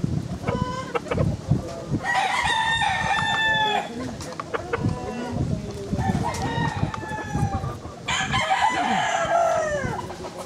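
A rooster crowing twice, each crow about two seconds long, the second falling in pitch at the end, with chickens clucking in short notes in between.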